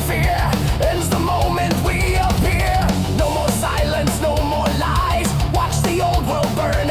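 Fast, loud thrash metal with distorted electric guitars over heavy bass and drums, a lead line bending up and down above the riffing.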